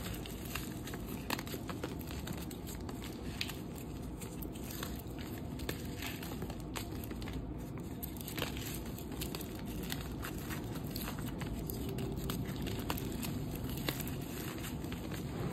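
Hands crumbling and crushing lumps of dry, dusty dyed gym chalk reforms, a continuous crunchy crackle with many small sharp clicks as the pieces break apart and fall onto the powdery pile.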